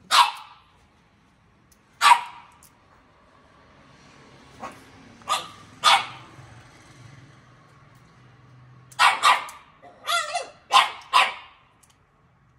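A dog barking off-camera in short, sharp barks: single barks a couple of seconds apart, then a quick run of five or six barks near the end.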